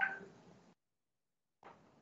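A dog giving a short yelp that fades within about a second, with a fainter sound near the end. Both come through a video-call microphone that cuts in and out abruptly.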